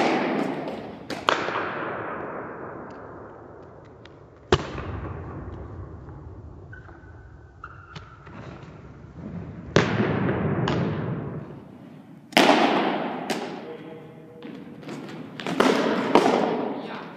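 Pitched baseballs smacking into catchers' leather mitts: about seven sharp pops, irregularly spaced a second to a few seconds apart, each ringing out in a long echo around the gymnasium.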